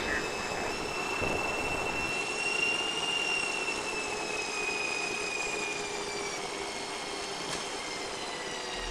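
Jet airliner sound effect: a steady rushing hiss with a high whine that rises a little and then slowly falls away.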